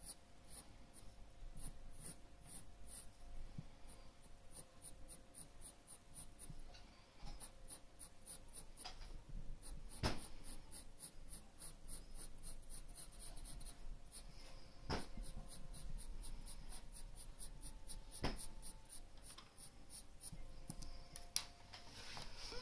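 Graphite pencil scratching on drawing paper in quick, short repeated strokes, about three or four a second, as fur and horn lines are hatched in. A few sharper ticks stand out among the strokes.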